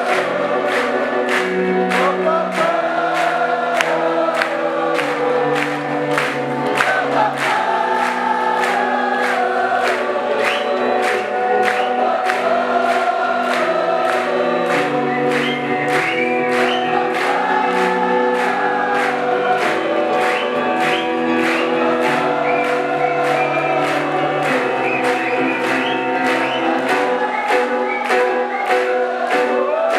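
Live jazz-fusion band music: sustained keyboard chords changing every second or two, with gliding melody lines above, over a steady beat of about two ticks a second.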